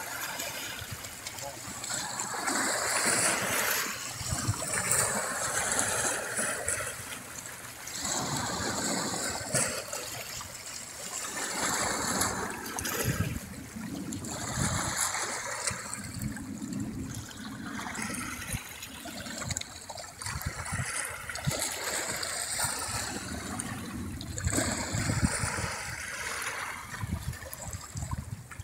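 Small waves washing and splashing over shoreline rocks and driftwood, swelling and falling in repeated surges every few seconds.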